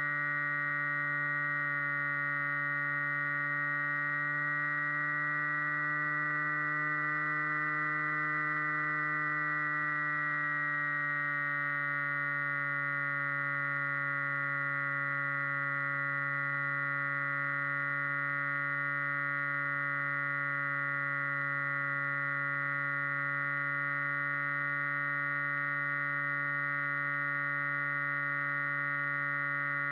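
Flying wing RC plane's motor and propeller heard from the onboard camera: a steady, even drone with a clear pitch. The pitch rises slightly, then drops a little about ten seconds in as the throttle changes, and then holds steady.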